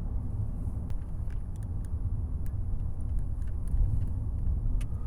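Steady low road and engine rumble inside a moving car's cabin, with a few faint small clicks.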